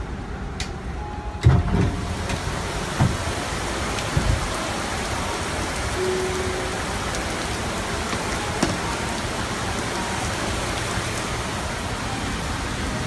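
Torrential rain pouring down in a dense, steady hiss that swells about a second and a half in, with a sharp thump at that moment and a couple of smaller knocks soon after.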